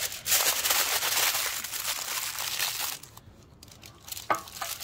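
Aluminium foil crinkling and crumpling as a beetroot is wrapped in it by hand, stopping about three seconds in. A single brief knock follows near the end.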